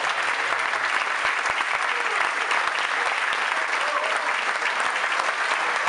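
Audience applauding steadily, with a few voices faintly heard among the clapping.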